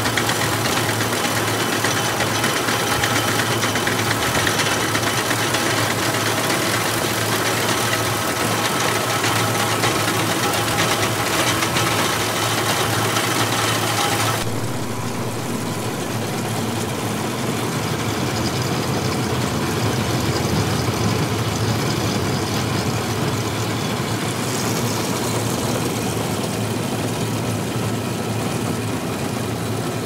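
Gehl 1475 round baler running in the field behind a Kubota tractor: the baler's pickup and belts turning over the engine's steady running, a loud continuous machine noise. About halfway through the sound changes abruptly, losing much of its hiss and dropping slightly in level.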